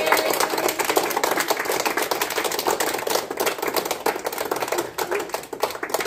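A crowd of people clapping their hands continuously and fast, thinning out and getting quieter near the end.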